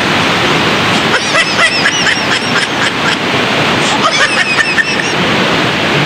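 Steady rush of a rain-swollen stream or river, with two bursts of quick high-pitched chirps over it.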